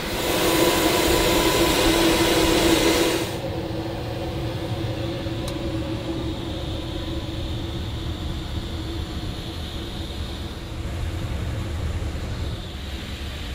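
Dassault Falcon 2000 business jet's engine and airflow noise: a loud steady rush with a hum for about three seconds, then an abrupt cut to a quieter steady drone with a lower hum and a faint high whine.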